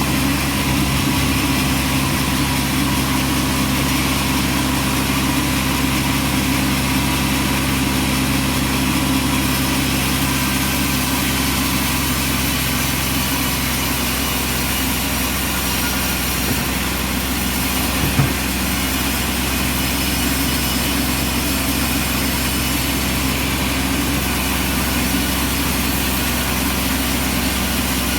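Engine of a bandsaw sawmill running steadily at a constant speed, with one short knock about eighteen seconds in.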